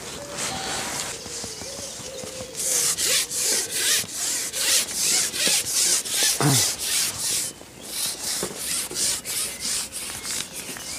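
A long pole-fishing pole being pushed back out in short repeated strokes, rubbing and scraping about two to three times a second, after some lighter handling at the start.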